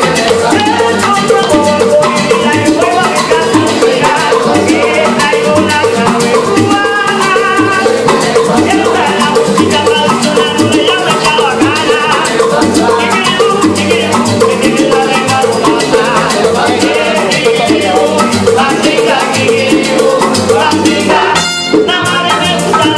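Live Cuban son band playing: acoustic guitars, upright bass, bongos and maracas in a steady dance rhythm, with a brief dip near the end.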